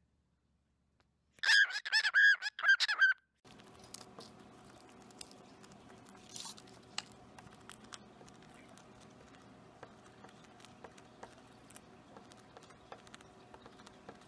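Cockatiel giving a quick run of loud, shrill calls about a second and a half in. Then many small scattered clicks and taps as it pecks crumbs off a hard wooden tabletop, over a faint steady hum.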